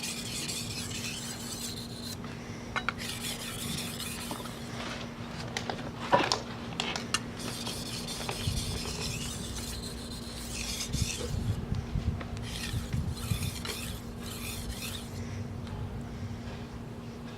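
Steel knife blade being stroked back and forth across a wet Shapton Pro whetstone, a gritty scraping that comes and goes in runs of strokes. A few sharp clicks are also heard, the loudest about six seconds in.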